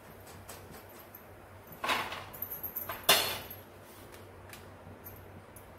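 Deep-frying kitchen sounds at a kadhai of shankarpali: a faint steady hiss with small clicks, and two short noisy clattering bursts about a second apart. The second burst is the louder and sharper.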